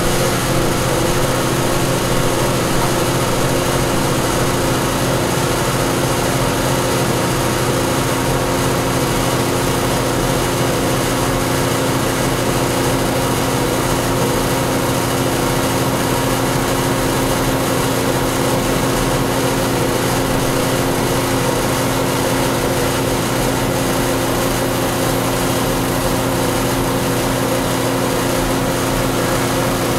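Router running steadily with an upcut spiral bit in a pin-router setup, flush-trimming a plywood piece against a template.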